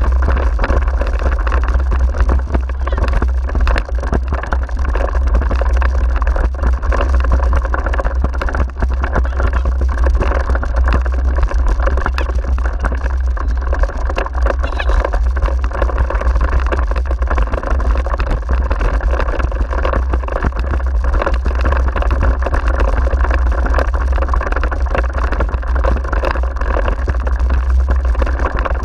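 Continuous rumble and rattle of a wheeled dog-racing rig rolling over a rough grassy dirt track, heavy and booming in the low end.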